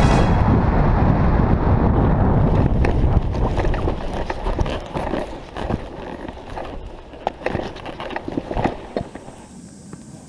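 A loud rushing noise that fades away over the first four seconds, followed by a series of irregular knocks and thumps.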